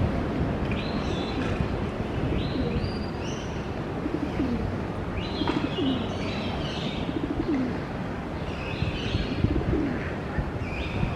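Pigeons cooing, a series of short low coos from about four seconds in, mixed with about five higher, stepped calls from other birds, over a steady low background hum.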